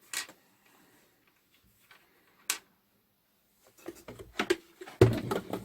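Handling noises on a workbench: a few sparse sharp clicks, then from about four seconds in a run of clicks and knocks with a louder thump about five seconds in, as small parts and a circuit board are picked up and set down.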